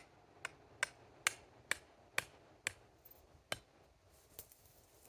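A stake being driven in with a hammer: sharp knocks about two a second, spacing out and slowing after about three seconds.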